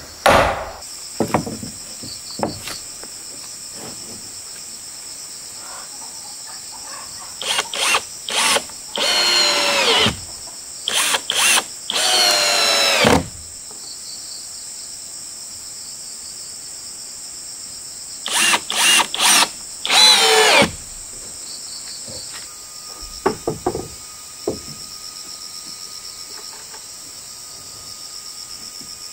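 A power tool running in short bursts, in two groups, its whine sliding up and down in pitch as it speeds up and slows, with a few sharp knocks. Insects trill steadily throughout.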